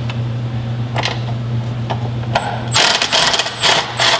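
Hand ratchet on a swivel extension clicking as it works a rear motor-mount bolt: a few single clicks, then a quick run of ratcheting from about three seconds in, over a steady low hum.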